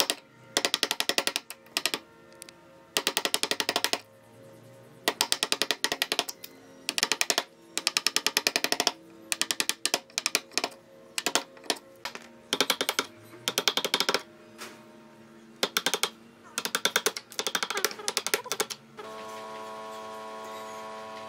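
A steel chisel being struck into a pine board to chop out a notch, heard as repeated bursts of rapid sharp taps, each burst lasting under a second, with faint music beneath. About two seconds before the end the tapping stops and only steady music remains.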